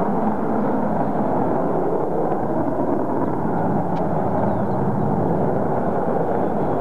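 B-1B Lancer's four F101 afterburning turbofans, a steady, loud jet noise as the bomber flies away.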